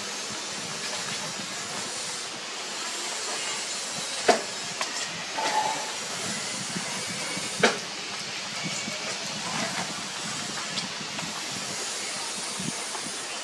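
Steady hiss with newborn puppies nursing: small sucking and smacking sounds, and two sharper knocks, about four and about seven and a half seconds in.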